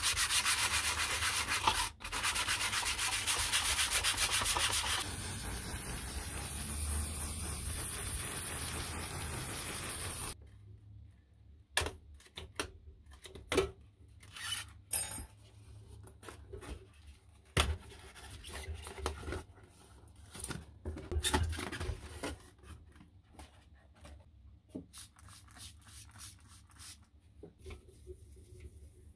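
Hand sanding of rusty sheet metal: fast, rough rubbing strokes that turn softer about five seconds in and stop about ten seconds in. After that come scattered light knocks, taps and short scrubbing scrapes from parts being handled and brushed.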